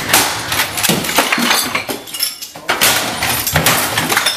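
Things on a desk being smashed: repeated crashes and glass breaking, with bottles clinking and clattering.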